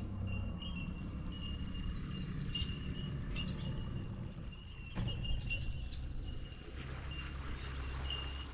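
Outdoor ambience: a steady low rumble, with short high chirps repeating at one pitch and a sharp click about five seconds in.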